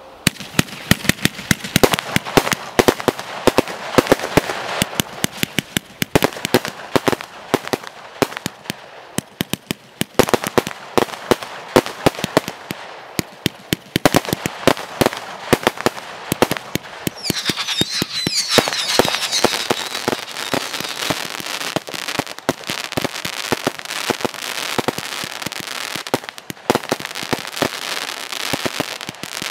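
A multi-shot firework cake (barrage box) firing: a rapid, irregular string of sharp launch pops and bursting bangs, with fizzing crackle between the shots.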